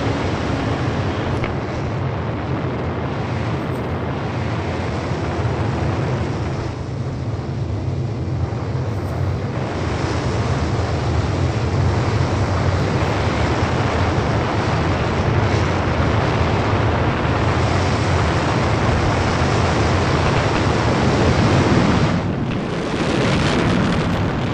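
Loud, steady rushing rumble, a wind-like flight sound effect with a strong low rumble underneath. It dips briefly near the end, then swells again.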